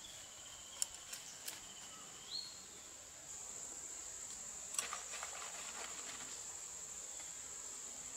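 A steady, high-pitched insect drone, like crickets, grows louder about three seconds in. Over it come a few sharp clicks and cracks, a cluster about a second in and another about five seconds in, as a large knife cuts through raw chicken.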